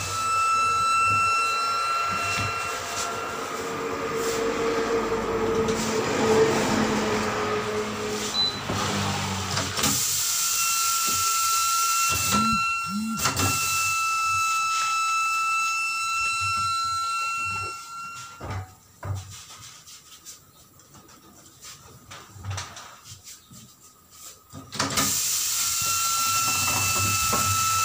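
Steady machine whine with a high tone, fading for a while, running again, then cutting out for several seconds with scattered knocks before starting up again near the end.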